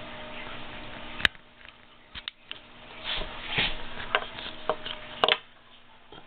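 Handling noises: a sharp click about a second in and another near the end, with rustling and small knocks between, as a small plastic brake light switch is handled.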